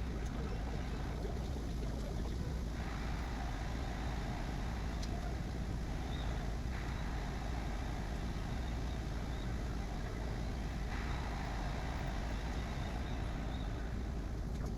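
Bambu Lab A1 3D printer running a print: a steady low hum and whir, its higher tone shifting every few seconds as the moves change.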